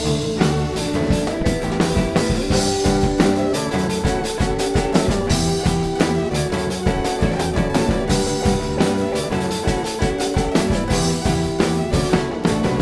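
Rock band playing live without vocals: a drum kit beating steadily under held guitar chords.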